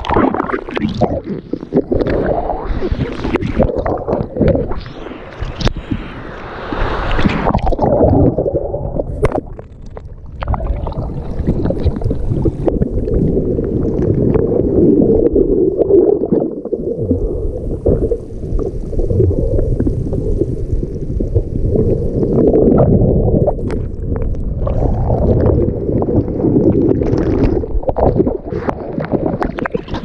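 Ocean surf and whitewater churning around a camera in the water, going under and back out: muffled underwater rumble and gurgling with crackling splashes. It is splashier for the first several seconds, mostly a dull submerged churning after that, and bright splashing again near the end.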